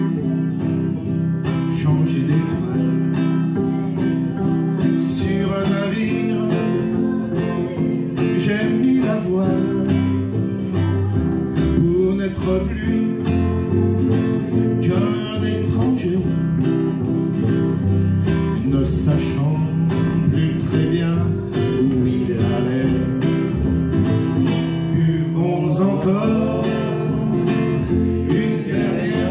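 Acoustic guitar strumming over a plucked upright double bass, an instrumental break in a folk song played live.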